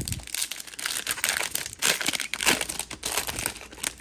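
Foil wrapper of a 2023 Topps Series 2 baseball card pack being pulled open and crinkled in the hands, a dense run of irregular crackles and rustles.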